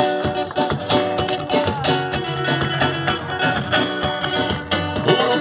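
Carimbó music: an instrumental passage of strummed guitar over steady percussion, leading into the next song.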